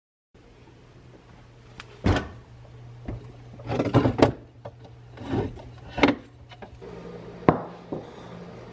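Household handling sounds: a string of knocks, clacks and rubs, as of objects, drawers or doors being moved, over a low steady hum.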